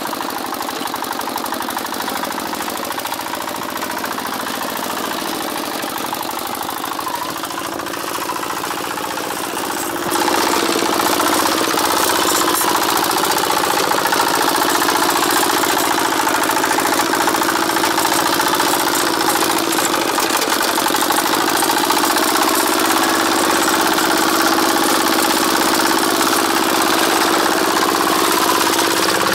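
Single-cylinder diesel engine of a two-wheel walking tractor running steadily with a knocking diesel chug as the tractor works the soil. It gets louder about ten seconds in.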